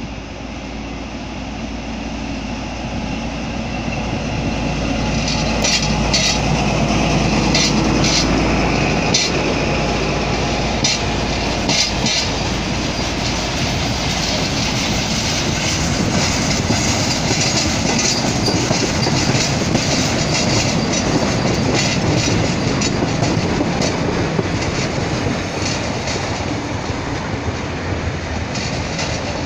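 Diesel-hauled freight train passing close by. The sound builds over the first few seconds as the locomotive draws near, then a long string of tank-container and flat wagons rolls past with a steady rumble and wheels clacking over rail joints; the clacks are thickest shortly after the locomotive goes by.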